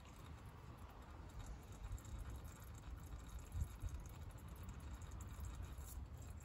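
Power steering fluid draining from a disconnected hose into a container: a faint trickle over a low rumble, with one soft knock a little past halfway.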